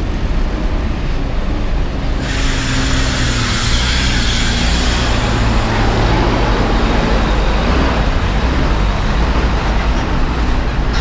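Large buses' diesel engines running with a steady low rumble as they drive slowly past at close range. About two seconds in, a loud hiss of compressed air starts suddenly, lasts about three seconds and fades away.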